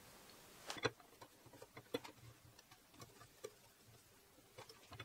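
Faint, scattered light clicks and taps of metal parts being handled as a 3D printer's Z-axis lead screw is fitted through its nuts into the coupling. One click just under a second in is the clearest.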